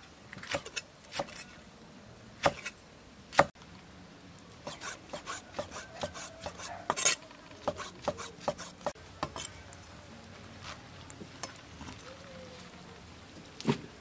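Cleaver chopping mushrooms on a thick wooden chopping block. A few spaced knocks come in the first few seconds, then a quick run of chops from about five to nine seconds in, then only an occasional knock.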